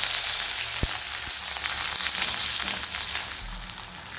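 Freshly added chopped onions sizzling hard in hot oil in a karai while a spatula stirs them. The sizzle dies down noticeably in the last second or so.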